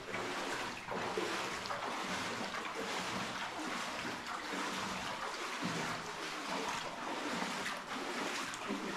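Steady splashing and trickling water noise, with small irregular surges.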